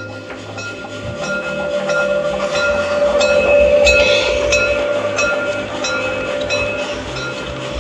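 LGB G-scale model steam locomotive of the Saxon VII K type and its coaches running past, wheels clicking regularly over the rail joints, about three clicks a second. It is loudest about four seconds in, as the locomotive goes by.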